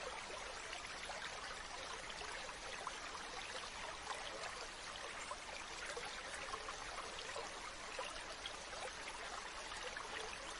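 Shallow stream running steadily over stones, a continuous rushing with fine trickling and splashing.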